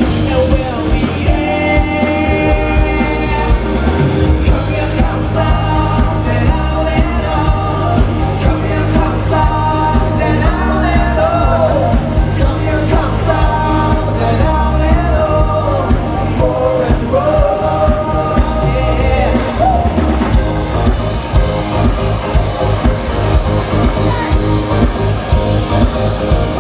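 A live rock band playing a song: sung lead vocals over drums, bass and guitars.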